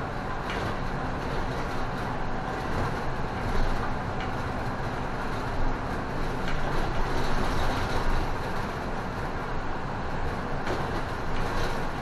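Isuzu city bus heard from inside the cabin while driving: a steady rumble of engine and road noise, with a couple of brief louder knocks a few seconds in.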